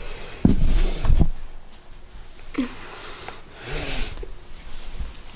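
A long-haired, flat-faced cat sniffing and snorting right at the microphone, loudest in a hissy burst a little after three and a half seconds in. Two heavy thumps against the camera come about half a second and a second in.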